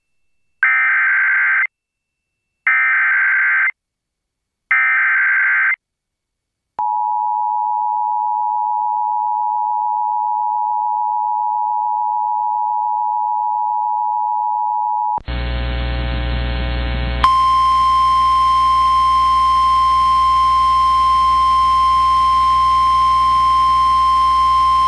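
Emergency Alert System header: three one-second bursts of screeching data tones a second apart, followed by the EAS two-tone attention signal held for about eight seconds. After about two seconds of hum and noise, a single steady tone starts about seventeen seconds in: the NOAA Weather Radio 1050 Hz warning alarm tone.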